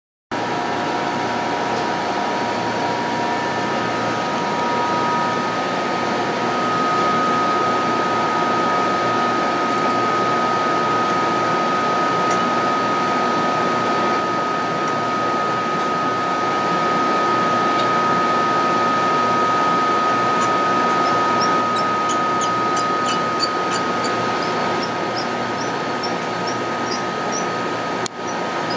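Steady hum and whine of beamline vacuum equipment and fans, with several steady pitched tones. In the last third comes a run of short, high squeaks.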